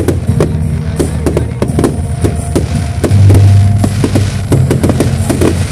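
Fireworks crackling, with many sharp pops in quick, uneven succession, from pyrotechnic fountains and the sparks trailing from the paragliders. Music with low, held bass notes plays underneath.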